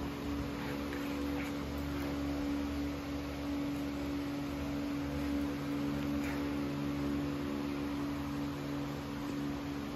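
Steady mechanical hum made of several constant low tones, with a few faint ticks about a second in and again after six seconds.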